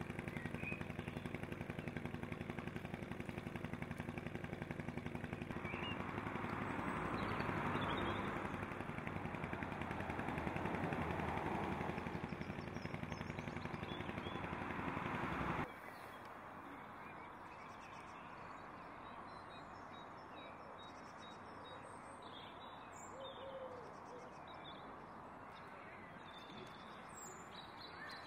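An engine idling steadily, cutting off abruptly a little past halfway to quiet outdoor ambience with scattered bird chirps.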